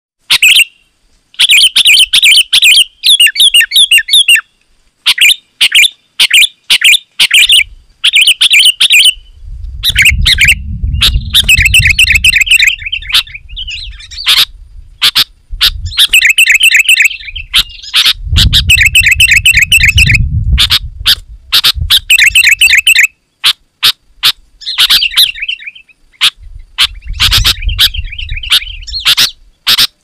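Sooty-headed bulbul calling loudly and without let-up: runs of rapid, chattering, bubbling notes, each a second or two long with short gaps between. A low rumble sounds underneath three times.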